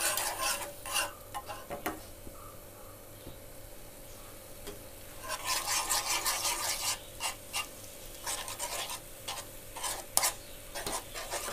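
Whisk stirring and scraping in a steel pan of milk and butter-flour roux, breaking up lumps, with light clinks against the pan. The scraping comes in uneven strokes, heaviest about halfway through.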